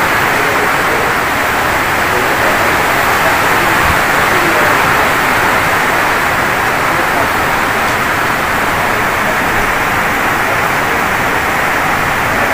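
A steady, loud rushing noise that runs without a break or change.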